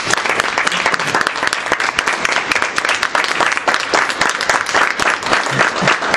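A small group of people applauding steadily in a small room: dense, even hand-clapping.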